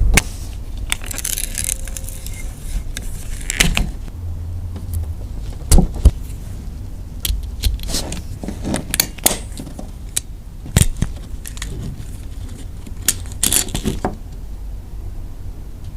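Small metal parts clinking, jangling and clicking as they are handled, with scattered sharp knocks, the loudest a little before halfway and again about two thirds of the way in, over a low steady hum.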